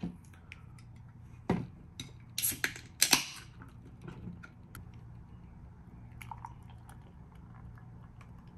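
A non-alcoholic IPA being opened: a knock, then a short hiss about three seconds in as the container is cracked, followed by faint clinks and handling sounds as the beer is readied to pour.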